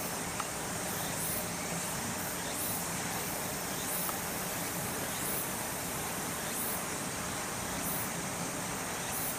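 Outdoor insect chorus: a steady high-pitched buzz with a short chirp repeating about once a second, over a faint steady low hum.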